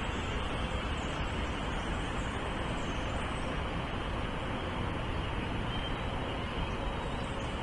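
Steady background rumble and hiss with no distinct events, the kind of sound distant road traffic makes.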